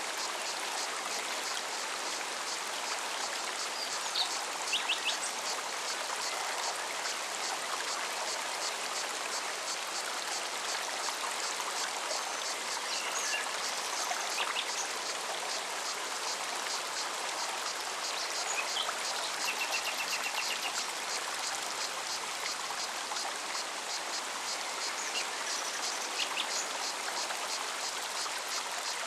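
Forest stream running steadily over stones, with a cicada singing high in a fast, even pulsing and a few short bird chirps and a brief trill.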